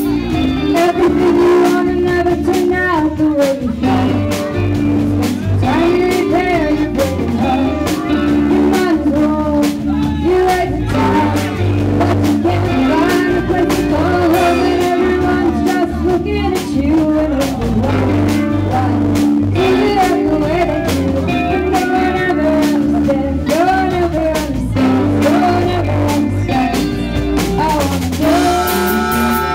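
A live band playing a song: a woman sings into a microphone over guitar, with a steady drum beat.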